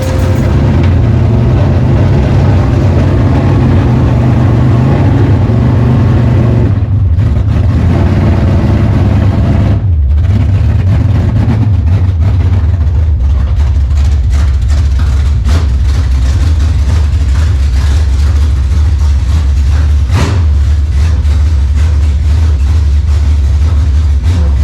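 A 1972 Dodge Challenger's 440 big-block V8 running very loud through its headers as the car is driven, with the engine note dropping lower about ten seconds in.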